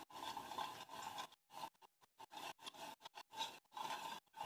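Spoon stirring and scraping in a bowl of milk and sugar to dissolve the sugar; faint scraping in short stretches with brief gaps.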